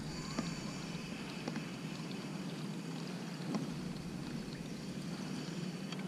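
Steady low background noise of a canoe on the water, with a few faint knocks.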